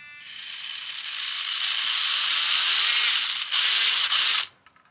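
Micro RC drift car's small electric motor and geared drivetrain whirring under throttle. It grows steadily louder over about three seconds as the throttle is squeezed further, breaks off briefly, runs again, then cuts off near the end.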